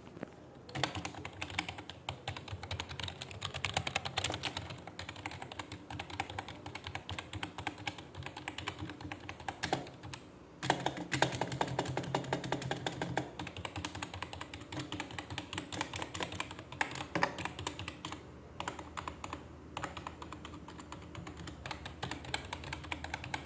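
Computer keyboard being typed on rapidly: a dense, continuous clatter of keystrokes with a couple of brief pauses. The keyboard is a non-mechanical (membrane-type) one.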